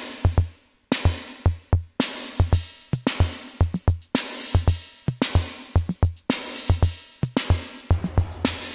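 Sound Master Stix ST-305 analogue drum machine playing a programmed pattern: punchy bass drum hits several times a second and a bright cymbal-like hit about once a second, with hi-hat ticks that fill in densely after about two and a half seconds. A low, sustained bass drum boom comes in near the end.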